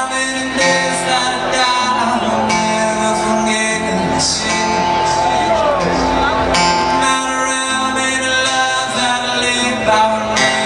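Live acoustic performance: strummed acoustic guitar with singing over it.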